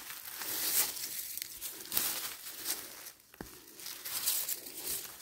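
Rustling and crinkling of forest undergrowth being handled while mushrooms are picked, with a couple of sharp clicks or snaps, one at the start and one about three and a half seconds in.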